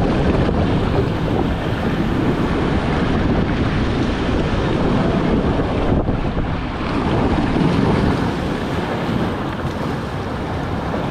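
Water rushing down a raft water slide flume under an inflatable raft, with wind buffeting the microphone: a steady, loud rush of water and wind noise. It eases a little near the end as the raft slows into the runout pool.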